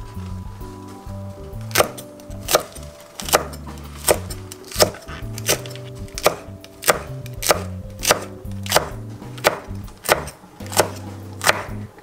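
Kitchen knife slicing Korean cucumber peppers (mild green chilies) into rings on an end-grain wooden cutting board. The blade knocks on the board in a steady rhythm of about three cuts every two seconds, starting about two seconds in.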